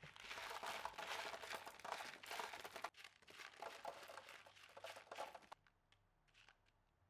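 Shards of broken glass clinking and crunching as they are scooped from a plastic sack with a plastic dustpan and stirred by hand, with some rustling of the plastic. The busy clatter stops about five and a half seconds in, leaving a few faint clinks.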